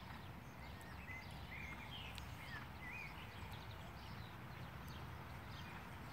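Steady low outdoor noise, with a few short bird chirps between about one and three seconds in.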